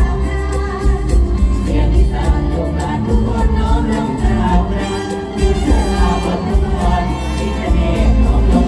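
Mor lam stage-show music played loud through a PA system, with singing over a heavy, steady bass beat.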